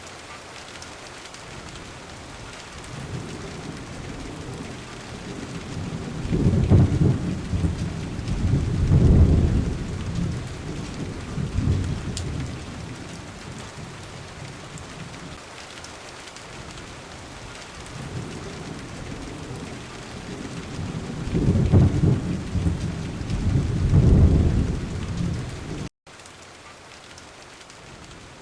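Steady monsoon rain hiss with two long rolls of thunder, one building about a quarter of the way in and another about three-quarters through. The sound drops out for an instant near the end, then the rain carries on.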